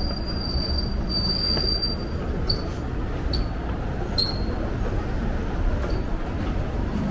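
A high metallic squeal, steady at first, breaking off about two seconds in and then returning as three short squeaks, over a continuous low mechanical rumble.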